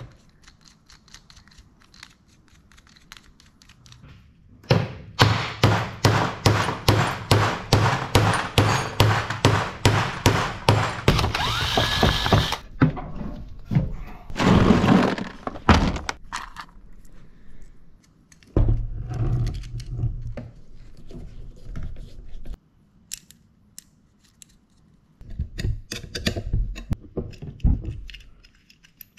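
A fast, even run of sharp knocks lasting several seconds, followed by a louder thud-like sound and scattered knocks and handling noises.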